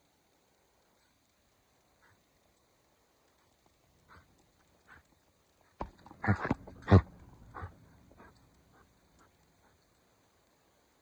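Blue Dutch Shepherd making a short run of dog sounds about six seconds in: two loud ones about half a second apart, followed by a few fainter ones.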